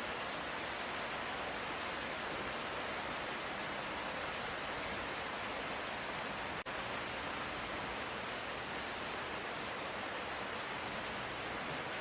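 Steady light rain, an even hiss with no thunder, that drops out for an instant a little past halfway.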